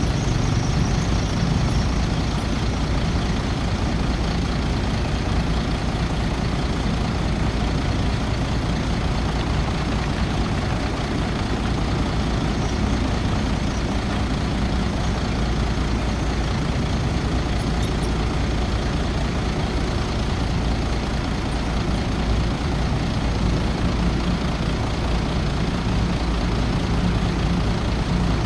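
Heavy diesel earthmoving machinery (bulldozer and dump trucks) running steadily, with a deep engine drone and a constant mechanical din.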